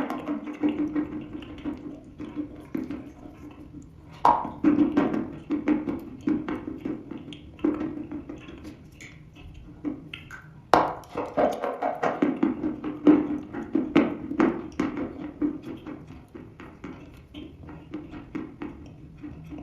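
Dry red chalk being bitten and chewed: a sharp crunching bite near the start, another about four seconds in and another about eleven seconds in, each followed by a run of quick crunching chews.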